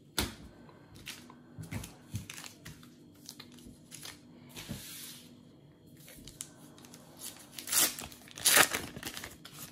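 Plastic trading-card packet being handled and torn open: crinkling and crackling throughout, with the loudest rips of the wrapper about eight seconds in.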